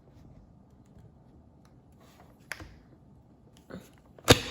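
Plastic parts of a Voweek cordless vacuum being handled, with a light click about two and a half seconds in and then one sharp, loud click near the end as the extension wand snaps into place.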